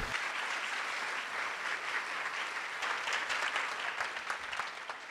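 Audience applauding, a dense patter of many hands clapping that fades a little near the end.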